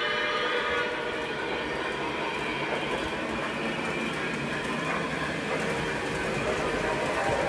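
Lionel Legacy O gauge train, a New York Central Dreyfuss Hudson steam locomotive pulling passenger cars, running along the track with a steady rolling rumble and the locomotive's onboard sound system playing.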